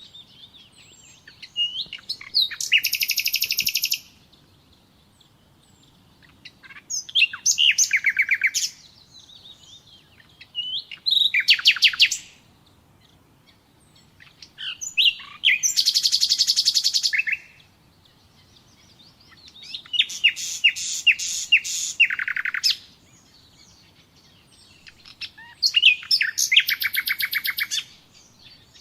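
Common nightingale singing: six loud phrases of fast, rapidly repeated notes, each about two seconds long, separated by short pauses. Faint chirps fill the gaps.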